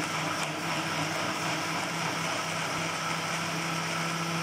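Electric blender motor running steadily at full speed, blending bananas, dates and milk into a milkshake, with a steady low hum under the whir.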